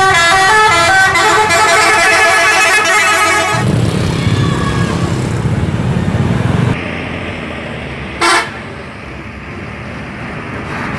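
Multi-tone musical bus horn (an Indonesian "telolet" horn) playing a quick melody of stepping notes for the first three and a half seconds. Then the low rumble of a heavy vehicle's engine passing, and one short horn blast a little after eight seconds.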